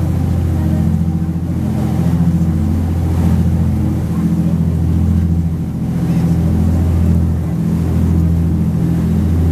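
Motor yacht cruising under engine power: a steady low engine drone with the rush of water along the hull and wake.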